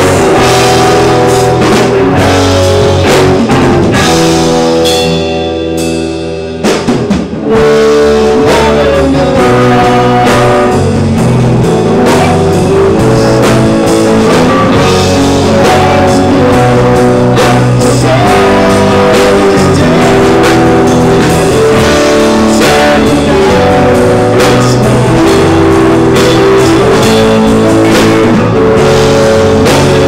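Loud rock music with guitar and drums, thinning out for a short break about five seconds in before the full band comes back.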